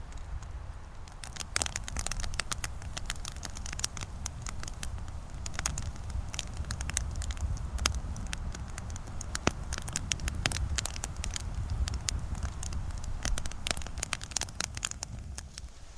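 Campfire crackling, with many irregular sharp pops and snaps that start about a second in and thin out near the end, over a low steady rumble.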